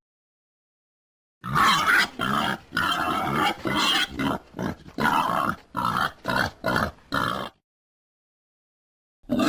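Wild boar grunting: a quick run of about a dozen short grunts over some six seconds, starting about a second and a half in.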